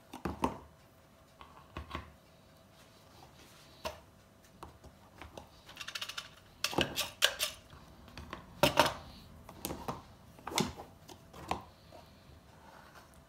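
A utensil scooping and scraping soft butter out of its container, with irregular clinks and taps against the dish, sparse at first and busiest in the second half.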